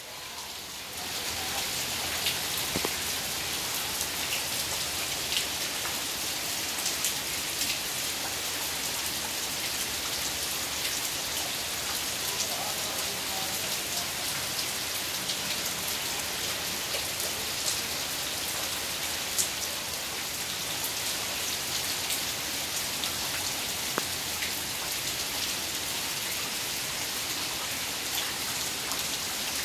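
Heavy rain pouring steadily on brick walls, paved ground and trees, with scattered sharper drops ticking close by. It fades in over the first second, then holds even.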